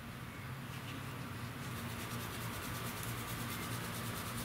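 Wadding polish rubbed by gloved hand along a stainless-steel motorcycle fork tube, a faint steady rubbing that cleans light surface rust off the tube.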